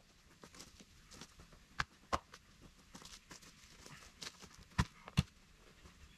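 Irregular light knocks and clicks, with four louder knocks in two pairs: one pair about two seconds in, the other about five seconds in.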